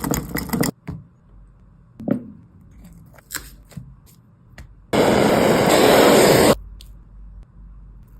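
Food-preparation sounds: a short clatter at the start, scattered knocks and scrapes, and a loud hiss lasting about a second and a half just past the middle.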